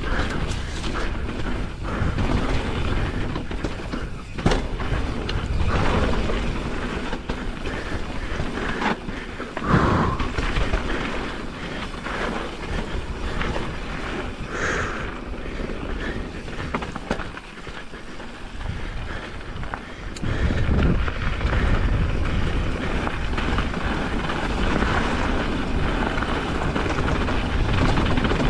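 Pivot Firebird enduro mountain bike riding a dirt trail: tyres rolling and crunching over the ground, the frame and drivetrain rattling, with sharper knocks from bumps about four seconds in and again near ten seconds.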